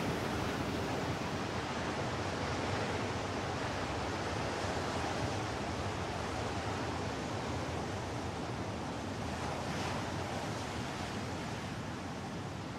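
Steady rushing noise with no distinct events or tones, easing slightly toward the end.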